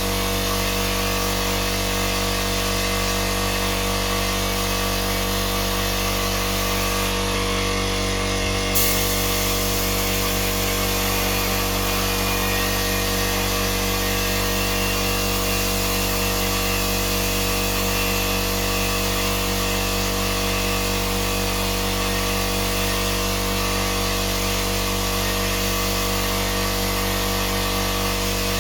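An electric power tool's motor running steadily with an even hum and hiss. About nine seconds in there is a click and the high hiss shifts.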